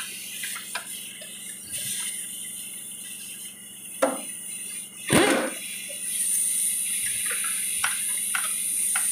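Hand tools knocking and clicking on a truck chassis during mount removal: two sharper knocks in the middle, then a few light clicks near the end. Under them runs a steady high hiss that grows louder about two-thirds of the way in.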